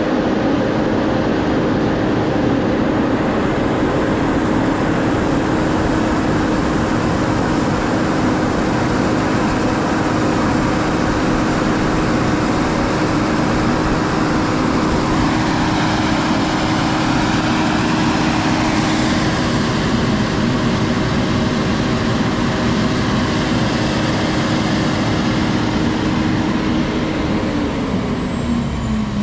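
Engine of heavy farm machinery running steadily at a constant speed. Near the end its pitch falls as the engine slows.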